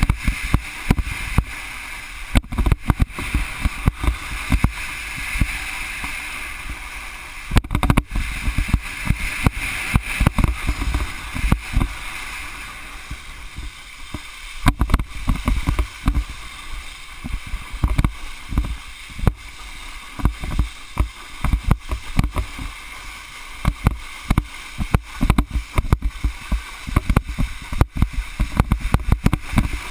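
Wakeboard planing fast across lake water behind a cable tow: a steady hiss of water spraying off the board, with frequent irregular low thumps.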